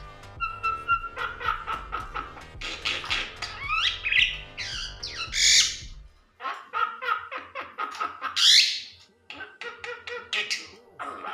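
Common myna giving a rapid string of harsh squawks, chirps and rising whistles, with short breaks about six and nine seconds in.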